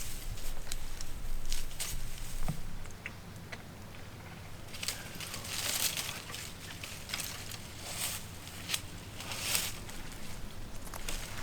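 Crackling and rustling of dry leaves, with a few breathy hissing bursts about halfway through and again near the end.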